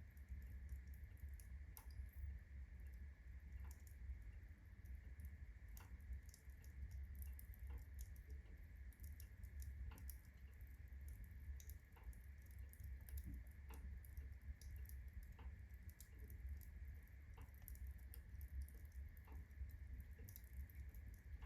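Birch logs burning in a fireplace, the bark crackling with many small irregular pops and snaps over a low steady rumble of the fire. A faint steady high whine runs underneath.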